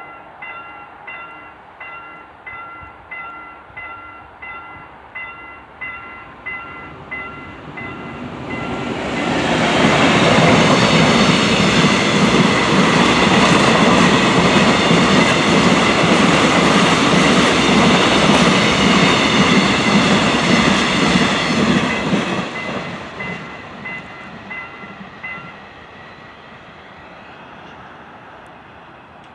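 A level-crossing warning bell dings steadily, about one and a half times a second. About nine seconds in, a bulk-cement freight train passes over the crossing, its wheels and wagons loud for about twelve seconds before fading away. The bell stops shortly after the train has gone.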